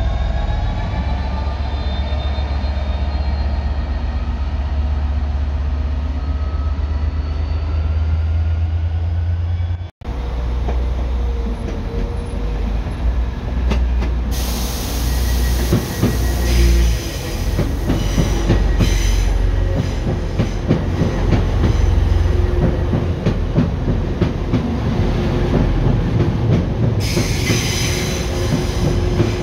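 Freightliner Class 66 diesel locomotive running past with a steady, loud low engine drone and pitch rising through its note. After a cut about ten seconds in, a TransPennine Express train rumbles along the platform, its wheels squealing at times.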